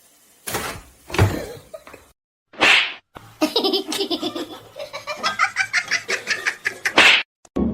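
A person laughing: a few short bursts, then a long run of rapid rhythmic laughter from about three and a half seconds in until near the end.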